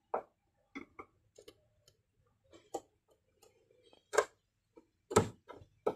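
Irregular light clicks and knocks, about eight of them spread unevenly, with the louder ones about four and five seconds in: tools and parts being handled during work on a fuel pump.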